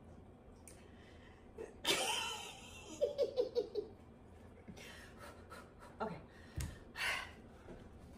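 A woman laughing helplessly. A sharp gasping breath comes about two seconds in, then a quick run of laughs, then several short breathy bursts of laughter.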